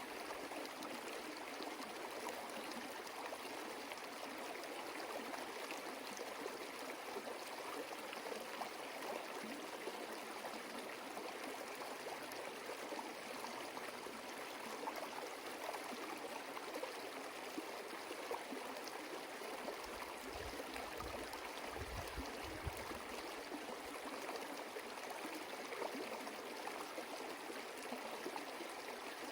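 Running water flowing in a steady rush, with a few brief low rumbles about two-thirds of the way through.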